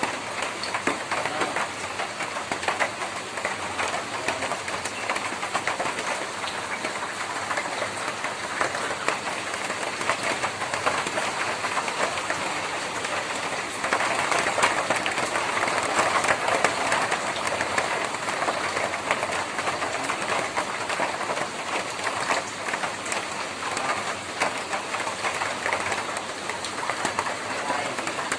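Rain falling on a tin roof: a dense, steady patter of drops that grows louder for a few seconds about halfway through.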